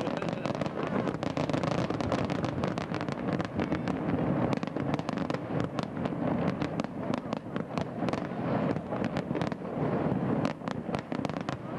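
Fireworks display going off without pause: a dense crackle of many rapid, overlapping pops and bangs.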